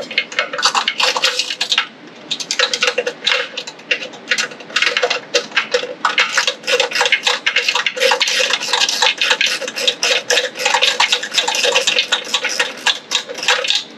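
Hand ratchet clicking rapidly in quick back-and-forth strokes as a bolt is backed out of a small engine, with a few short pauses between runs of clicks.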